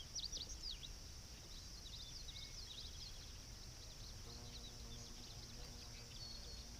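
Songbirds calling in quick series of short falling chirps over a steady high insect drone. From about four seconds in, a faint low steady hum joins.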